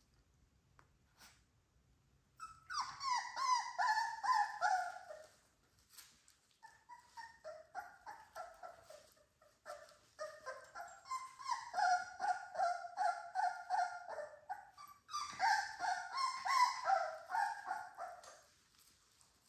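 Three-week-old American Bully puppies whining and yelping in quick, high-pitched falling cries, several a second, in three bouts starting a couple of seconds in.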